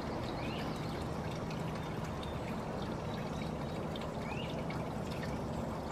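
Steady rushing background noise with a faint low hum under it, and a couple of faint, short, high rising chirps, one about half a second in and one near the end.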